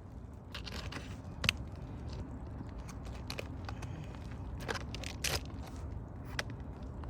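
Scattered sharp crackles and scrapes from work on an aged asphalt 3-tab shingle roof, with stronger snaps about a second and a half in and about five seconds in.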